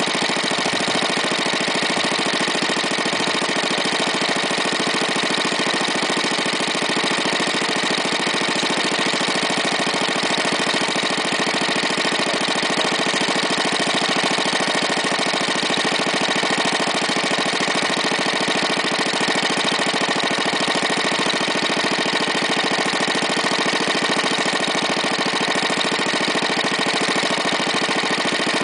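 1936 Briggs & Stratton Model WM single-cylinder engine running steadily at a constant speed with no load.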